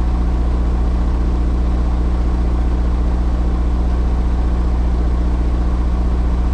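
Freightliner semi truck's diesel engine idling steadily, with an even low running pulse. The truck has just been restarted after a no-start that the mechanic puts down to a loose battery ground connection.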